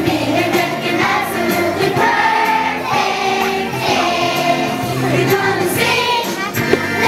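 A group of young children singing a song together, with instrumental accompaniment.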